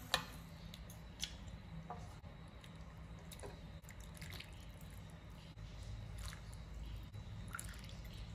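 Soup being ladled into a bowl: broth pouring and dripping, with a few light clicks of the ladle against the bowl and pot over a low steady hum.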